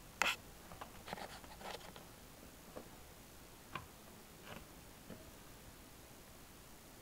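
Burmese kittens play-fighting in a fleece cat bed: short scratches and taps of claws and paws on the fabric. A sharp scratch right at the start is the loudest, followed by a quick cluster, then single scuffles about once a second.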